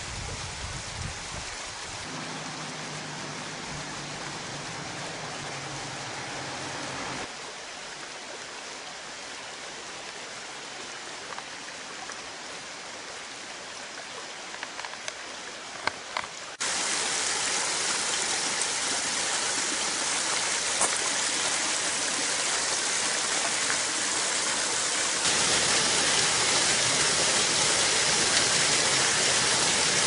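Steady rush of running water from the Bigăr waterfall and its shallow stream, running low. The level jumps up or down abruptly a few times, about 2, 7, 17 and 25 seconds in, and is loudest in the second half.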